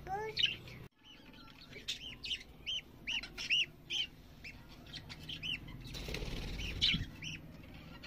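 Budgerigars chirping: short chirps that rise and fall, repeated about two times a second, with a brief cut-out about a second in.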